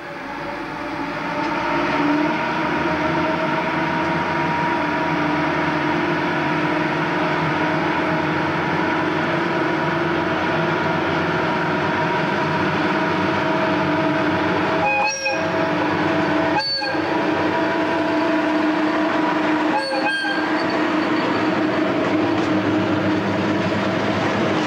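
Meter-gauge diesel locomotive's engine throttling up about two seconds in and then running loud and steady as it pulls away hauling a freight train.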